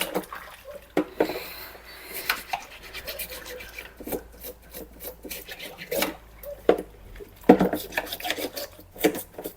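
A toothbrush scrubbing the plastic parts of a cordless stick vacuum cleaner, in quick irregular rasping strokes.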